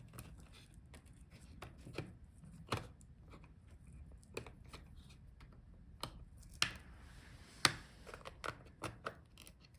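Small screwdriver working screws out of the storage-drive bay of a Dell Precision 7550 laptop: faint, scattered small clicks and ticks, with a few sharper clicks in the second half.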